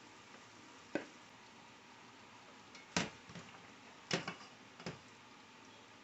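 A cooking utensil knocks against a pot four or five times at uneven intervals, some knocks ringing briefly, as seasoning is stirred into the chicken.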